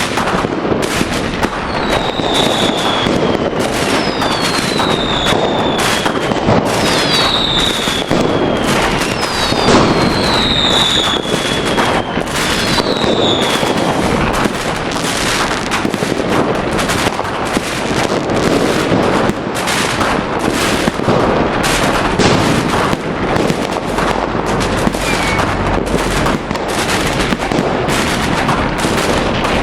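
Fireworks going off in quick succession: continuous bangs and crackling, with several descending whistles from whistling fireworks during the first half.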